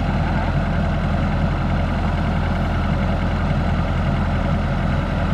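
Yanmar 850 rice combine harvester running as it harvests rice: a steady, unbroken low engine hum.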